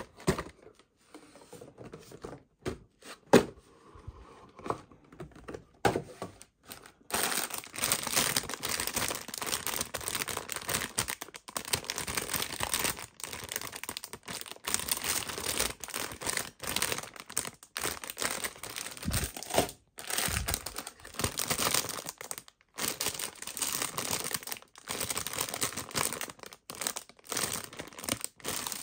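A few scattered clicks and knocks as a cardboard model-kit box is handled, then, from about seven seconds in, continuous crinkling of the clear plastic bags around plastic model kit runners as they are lifted out and handled, with short pauses.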